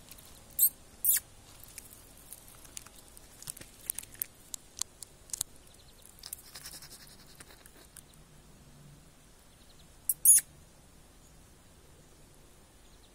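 Nestlings begging in the nest: thin, very high squeaks, two near the start and a loud one about ten seconds in, with a run of short faint ticks in between.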